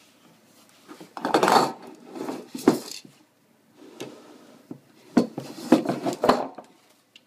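Metal aerosol spray paint cans being handled, knocking and clinking against one another and against hard surfaces in two spells of handling noise with a few sharp knocks.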